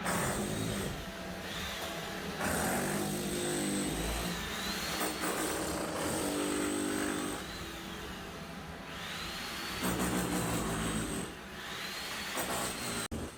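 Power tool running in several long bursts during floor demolition. Its motor whine rises and falls in pitch as it works.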